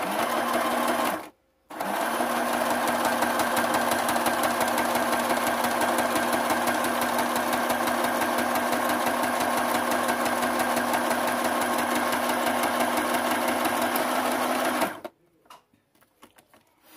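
Electric sewing machine stitching a straight seam through clear plastic sheet: it stops for a moment about a second in, then runs steadily at an even fast stitch for about thirteen seconds and stops near the end.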